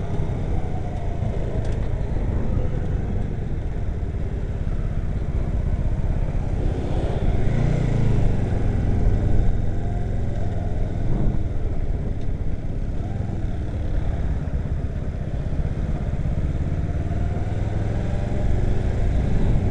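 Motorcycle engine running at low speed while riding, heard from a camera mounted on the bike, with a low wind rumble on the microphone. The engine sound swells briefly about seven seconds in.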